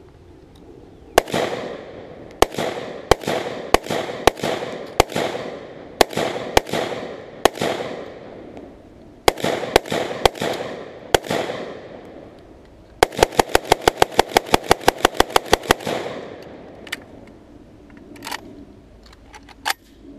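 Short-barrelled AK-pattern rifle firing: about a dozen single shots at uneven intervals, each with a short echo, then a rapid even string of about eighteen shots over some three seconds. A few fainter shots follow near the end.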